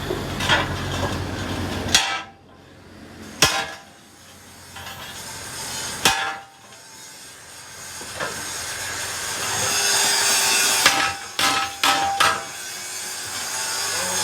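A few scattered sharp knocks, like hammer blows on metal, some leaving a brief metallic ring, with a cluster of three near the end.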